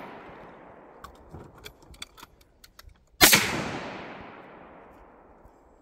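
A single shotgun blast from a Cooey Model 48 single-barrel 12-gauge firing a 3-inch shell, about three seconds in, with a long echo dying away over a couple of seconds. Before it, the echo of the previous shot fades out and a few faint clicks are heard.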